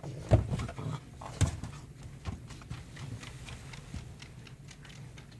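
Jindo dogs play-fighting: low growling with scuffling knocks of paws and bodies. The loudest knocks come about a third of a second and about a second and a half in.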